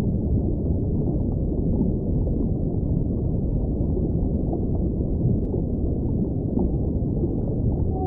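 Steady low rush and rumble of ocean water, the background of a whale-sound recording, with no whale call in it. A few faint ticks sound now and then.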